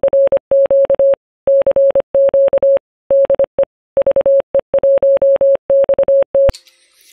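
Morse code (CW) sent as a single steady tone keyed on and off in short and long elements, grouped like letters. It stops abruptly about six and a half seconds in.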